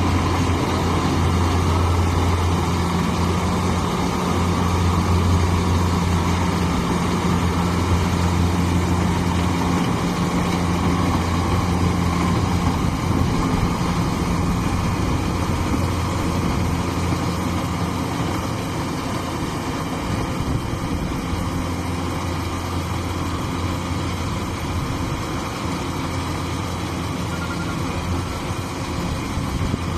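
Engine of a rice-harvesting machine running steadily, with a low hum that dips and returns in strength.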